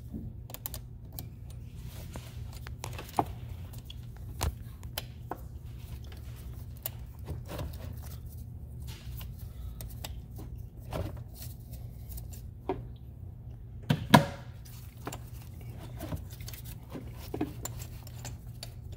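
Small metal clicks and taps as a 10 mm open-end wrench is repeatedly repositioned on a car battery's positive terminal clamp nut, loosening it a little at a time, with a sharper clack about 14 seconds in.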